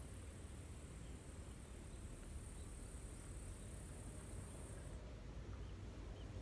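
Faint insect buzzing, a steady high-pitched trill that cuts off about five seconds in, over a low background rumble.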